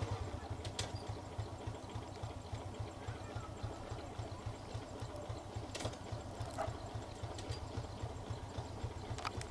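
An engine idling steadily, a fast, even low pulsing, with a few faint clicks over it.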